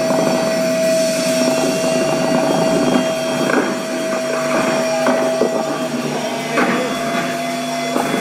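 Concert crowd cheering and shouting over a steady droning note held from the stage PA.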